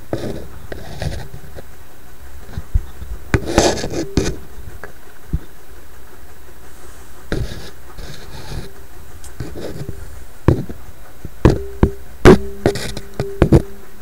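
Handling noise from a handheld camera and hands working close inside a tube radio chassis: scattered clicks, knocks and rubbing over a steady hiss, with a short humming tone coming and going a few times. The loudest knocks come near the end.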